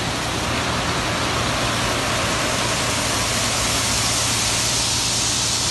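A heavy machine's diesel engine running steadily under a constant hiss, with no change in pace.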